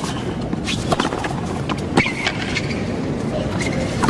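Tennis ball struck back and forth with rackets in a rally on a hard court, sharp hits every second or so with the loudest about two seconds in, and sneakers squeaking briefly on the court surface.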